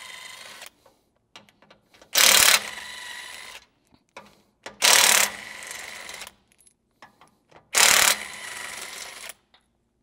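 Cordless impact wrench with a 17 mm socket hammering out the bolts of a 4Runner's factory receiver hitch, in three bursts of about a second and a half each. Each burst starts hardest and then runs on lighter. Small clicks of the socket and bolts fall between the bursts.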